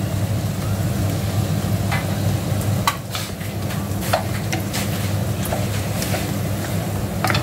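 Tofu sisig sizzling in a stainless steel frying pan as a wooden spatula stirs it, with a few sharp taps and scrapes of the spatula against the pan.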